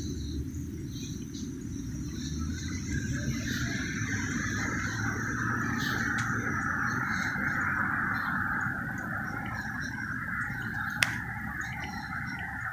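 Night city ambience: a steady low rumble with a rise of higher hiss partway through, thin high chirping over it, and one sharp click about eleven seconds in.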